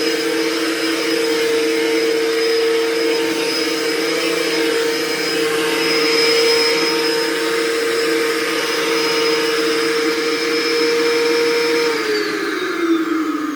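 Hoover Turbopower 2 vacuum cleaner running steadily on its freshly serviced motor, with a steady whine over the rush of air. About twelve seconds in it is switched off and the motor winds down, the whine falling in pitch.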